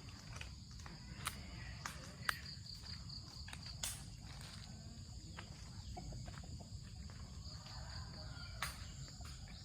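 Steady high-pitched chirring of insects such as crickets or cicadas, with scattered footsteps and twig or leaf crackles.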